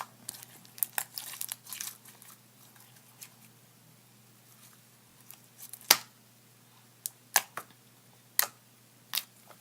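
Elmer's glue and borax slime being kneaded and stretched by hand, giving off scattered sharp clicks and pops, the loudest about six seconds in.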